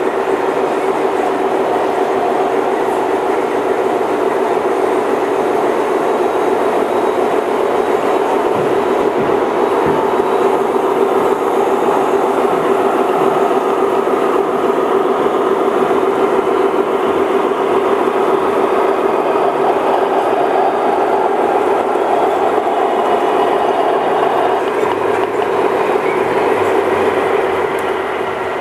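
O scale model trains running on the layout: a steady electric hum with the rolling rumble of wheels on metal track, easing slightly near the end.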